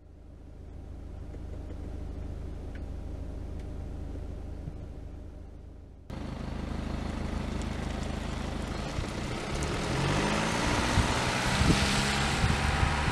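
BMW 220d's four-cylinder turbodiesel: first a steady low hum, then after a sudden cut about six seconds in, the car is heard from outside pulling away, its engine note rising as it accelerates, with wind on the microphone.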